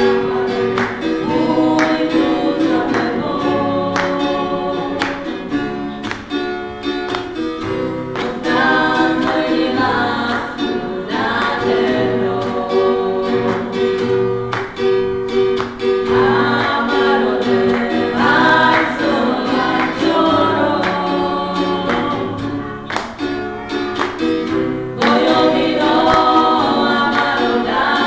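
Several girls' voices singing a song together into microphones, accompanied by a strummed acoustic-electric guitar.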